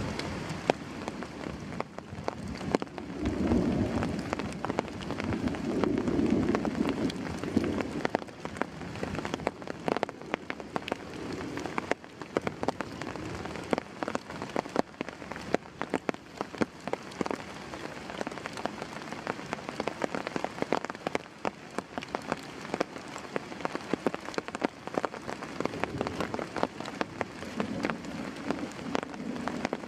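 Heavy tropical rain falling steadily, with many individual drops pattering sharply. A low rumble swells about three to eight seconds in and again near the end.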